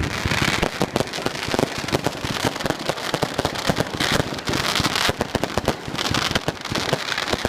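Fireworks going off in quick, irregular succession: a dense, continuous rattle of bangs and crackles with no let-up.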